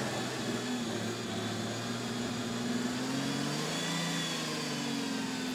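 Off-road truck engine held at high revs while its tyres spin in deep mud. The pitch stays fairly steady, rising a little about three to four seconds in and then settling.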